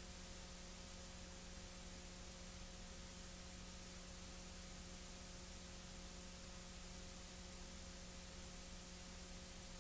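Steady hiss with a low, unchanging hum: the noise floor of an old film transfer, with no other sound.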